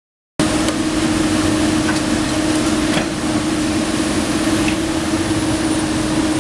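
Komatsu PC290 NLC excavator's diesel engine running steadily with a constant hum, cutting in suddenly about half a second in, with a few faint clicks over it.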